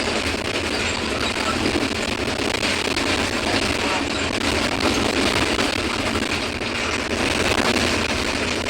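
Mercedes-Benz OF-1721 BlueTec 5 city bus's diesel engine running steadily while under way, mixed with road noise.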